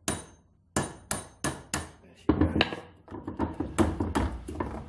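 Hammer striking a steel pin punch to drive a rivet out of a chainsaw bar's roller nose held in a bench vice: four sharp metal blows about a third of a second apart, then a busier run of lighter knocks and clinks.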